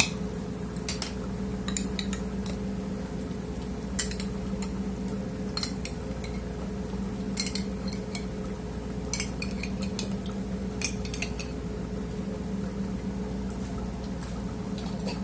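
A metal spoon clinking and scraping inside a glass jar of tomato pasta sauce as it is scooped out, in short, irregular sharp taps, over a steady low machinery hum.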